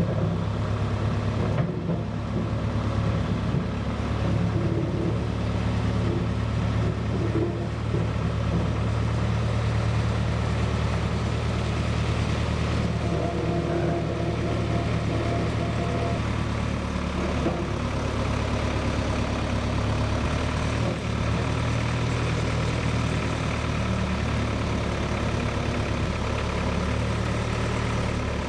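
Engine running steadily at idle, a continuous low hum.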